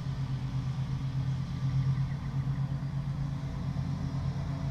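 Honeybee colony humming from an open hive crowded with bees on the frame top bars: a steady low drone that holds the same pitch throughout.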